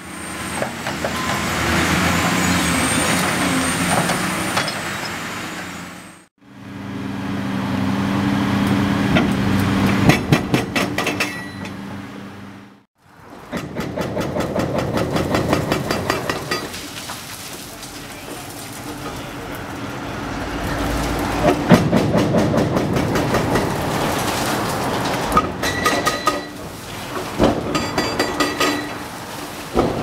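Diesel engine of a Cat 345C hydraulic excavator running under load while demolishing a concrete bridge, with sharp knocks and clattering as concrete breaks and rubble falls. The sound stops abruptly twice and picks up again.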